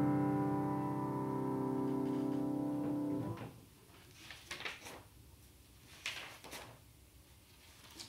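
Final chord on a grand piano fading away, then cut off about three seconds in as it is released. Sheet-music pages follow, rustling twice as they are turned on the music stand.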